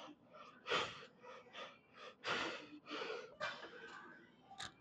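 A man breathing hard in short, sharp breaths, several of them a second or so apart, while lifting a heavy set of reps.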